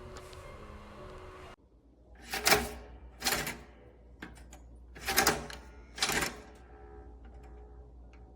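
Cuisinart toaster's carriage lever pushed down and springing straight back up, a pair of sharp metal clacks a little under a second apart, twice: the lever is not latching down. Before that, a steady hiss cuts off suddenly.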